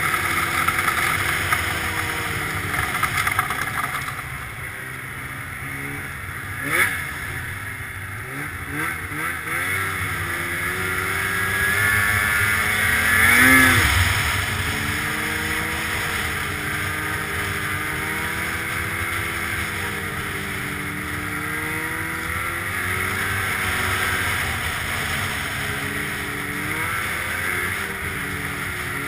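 Arctic Cat snowmobile engine running under way, its pitch rising and falling with the throttle. About halfway through it revs up sharply and back down, the loudest moment, and there is a short knock a few seconds before that.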